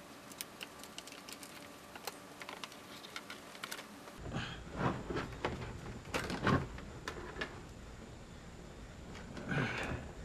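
Light, quick ticks and clicks of stiff wire and cable being handled. About four seconds in these give way to louder, scattered knocks and rustling as a cable is fed through a boat's dash console and the hand bumps the console panel.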